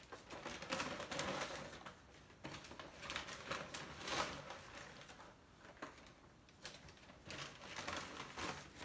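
Paper takeout bags rustling and crinkling while cardboard nugget boxes are pulled out and set down on a stack, in irregular bursts.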